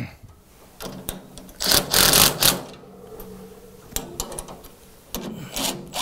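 Cordless drill with a socket bit, run in four short bursts to tighten nylon locking nuts onto the bolts of a steel heater bracket; the loudest burst comes about two seconds in.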